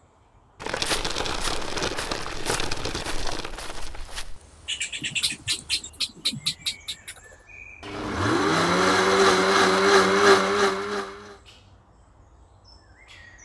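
Small plastic wheels of a toy wagon and stroller rattling as they roll, then a quick run of high clicks. About eight seconds in, a motor whirs up to speed and runs steadily for about three seconds before cutting off.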